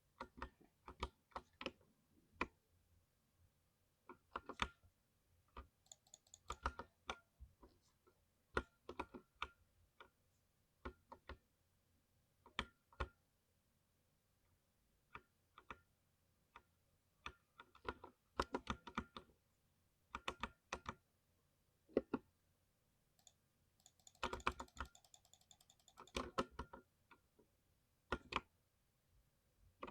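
Typing on a thocky mechanical keyboard: short, irregular runs of key clicks, a few keystrokes at a time, separated by pauses of a second or two.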